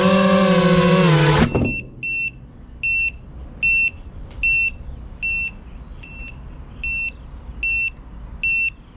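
FPV quadcopter's motors whining, then cutting off abruptly about a second and a half in as the drone lands and stops. After that the drone's onboard buzzer beeps repeatedly, a short high beep every three-quarters of a second or so.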